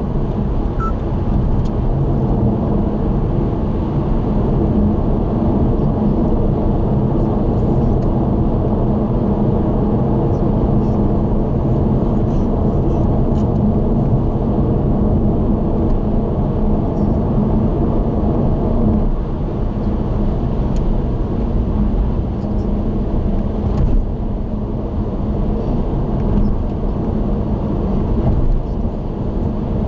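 Car driving at expressway speed: steady tyre and road noise with a low engine hum.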